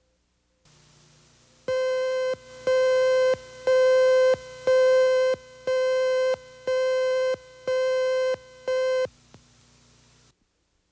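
Eight evenly spaced electronic beeps, about one a second, each a buzzy mid-pitched tone lasting a little over half a second, over a faint steady low hum: the leader beep tones of a 1980s news videotape, played under a station slate between stories.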